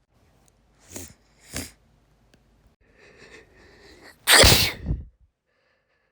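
A woman sneezes once, loudly, a little over four seconds in. Before it come two short, sharp breaths and a drawn-out, wavering in-breath as the sneeze builds.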